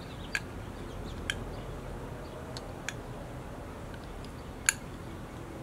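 Metal bar spoon scraping condensed milk out of a small shot cup, giving a few light, sharp clicks, the loudest a little before the end.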